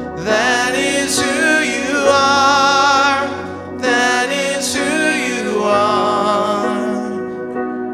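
Worship song: a sung melody with vibrato over held instrumental chords, in phrases that break about every two to three seconds.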